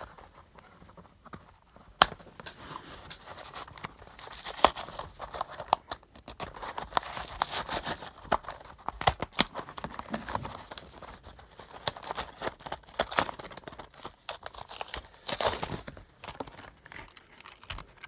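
Plastic blister packs with card backing being torn and pried open by hand: irregular crinkling and tearing of stiff plastic with sharp cracks, the loudest about two seconds in.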